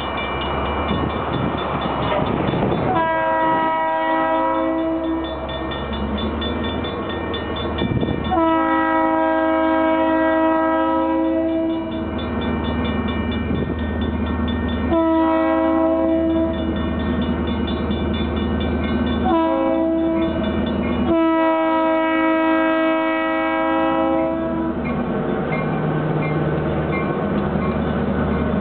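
Leslie S3L three-chime air horn on a Norfolk Southern GP38-2 diesel locomotive, sounding for a grade crossing: five blasts, the fourth one short and the rest long. A steady low diesel engine rumble runs underneath and carries on after the last blast.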